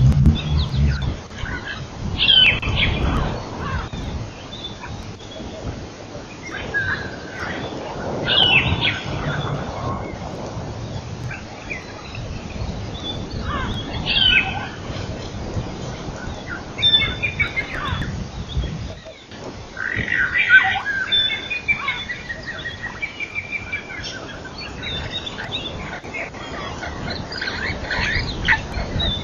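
Several wild birds calling in short chirps and trills over a steady background hiss, with a denser run of repeated calls about two-thirds of the way through.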